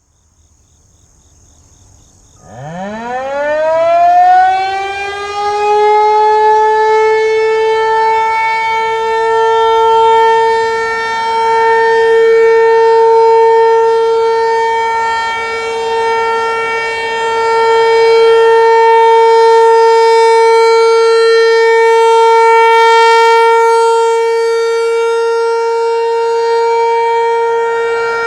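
Federal Signal Equinox rotating warning siren (465 Hz) winding up from a low pitch about two and a half seconds in and settling within a couple of seconds into a steady alert tone. The tone swells and fades slowly as the siren head rotates. This is the steady 'alert' signal of a scheduled siren test.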